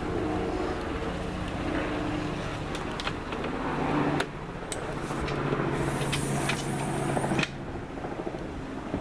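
Steady low engine hum. Several sharp clicks come around the middle, and a rushing hiss runs from about four seconds in until it cuts off suddenly about three seconds later.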